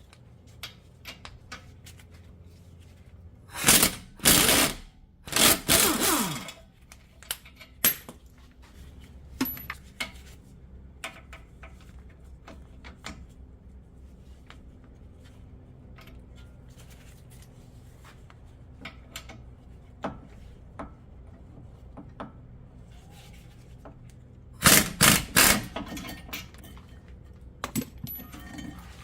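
Impact wrench run in short bursts, twice about four to six seconds in and again near the end, loosening the 21 mm brake caliper bracket bolts; scattered clinks and clicks of tools and parts being handled between the bursts.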